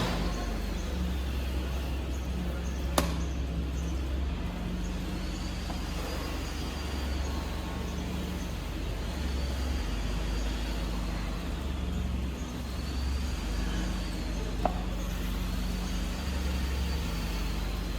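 A machine running steadily with a low hum, while a faint whine rises and falls about every four seconds, and there are two sharp clicks.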